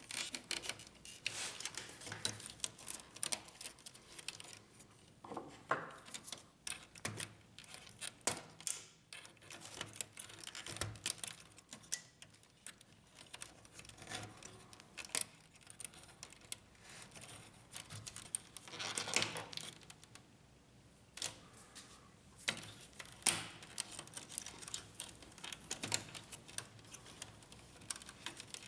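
Irregular small clicks and knocks of hands unplugging cable connectors from the HP LaserJet P1102 printer's electronic board, with a denser run of clicks about two-thirds of the way through.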